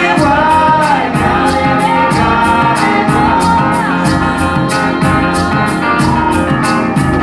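Recorded music with a singing voice over a steady beat, played back through Viva Audio multi-horn loudspeakers.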